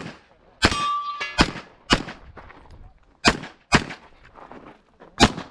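Gunshots fired at a practical-shooting stage: about six sharp shots at uneven spacing, some in quick pairs, each trailing off in a short echo. A brief steady tone sounds about a second in.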